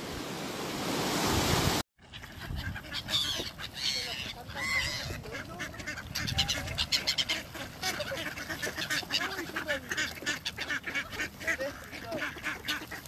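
Surf washing up on a sandy beach for under two seconds, cut off abruptly. Then a flock of mallard ducks quacking, with many short, overlapping calls.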